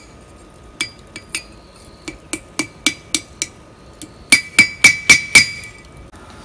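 Hand hammer striking a steel horseshoe on an anvil to drive out its old nails: a run of light taps, then five harder, faster blows near the end that ring metallically.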